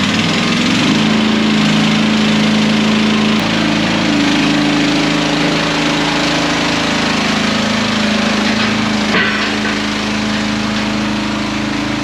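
Stihl 028 Super two-stroke chainsaw running at high revs and cutting wood, its pitch shifting slightly under load.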